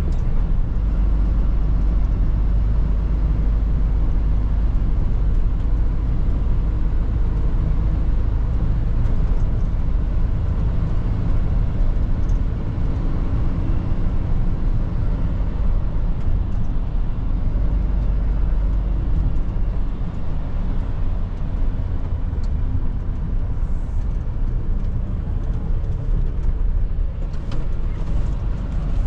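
Mercedes-Benz Atego truck's diesel engine and road noise heard from inside the cab while driving, a steady low rumble.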